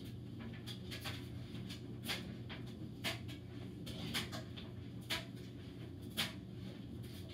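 Steady low room hum with faint, sharp clicks, the clearest coming about once a second.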